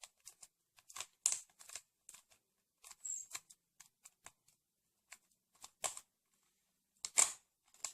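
Rubik's cube being turned through an OLL algorithm: a string of short plastic clicks and clacks as the layers are twisted, coming in irregular groups with brief pauses between moves.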